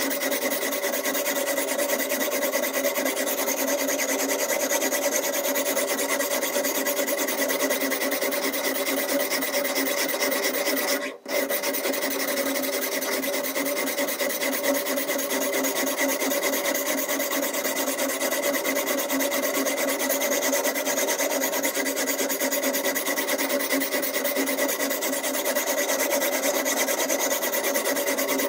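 Diamond whetstone on the guide rod of a Ruixin Pro RX-008 sharpener being worked back and forth along a clamped steak knife blade: a continuous scraping of abrasive on steel, broken once by a short pause about eleven seconds in.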